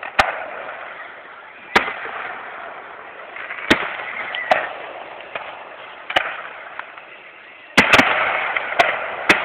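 Aerial fireworks shells bursting: a series of about nine sharp bangs at uneven intervals, two in quick succession near the end, over steady background noise. Recorded through a cellphone microphone, so it sounds thin and lacks the high end.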